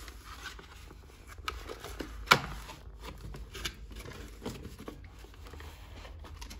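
A cardboard toy box being opened and its cardboard insert slid out: scattered rustling, scraping and clicking of the packaging, with one sharp click about two seconds in.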